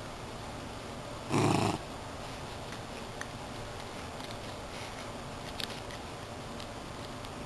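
Miniature schnauzer gnawing on a plush squirrel toy, with a few faint clicks. About a second and a half in, the dog makes one short, loud sound lasting about half a second.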